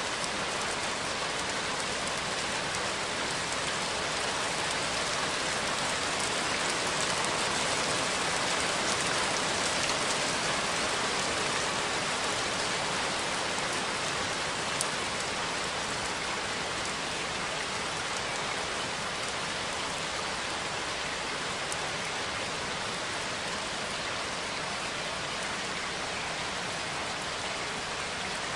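Steady, continuous rain falling on a surface, an even hiss of many drops with no thunder.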